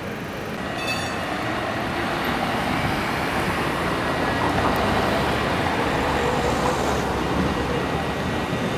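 A RandstadRail light-rail tram approaching along street track, its running noise growing louder over the first few seconds and then holding, over general street traffic. A brief high ring sounds about a second in.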